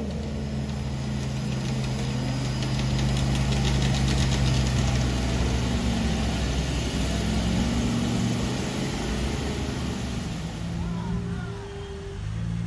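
Engine of an off-road 4x4 truck working through deep mud, holding a steady pitch at first and then revving up and down in the second half.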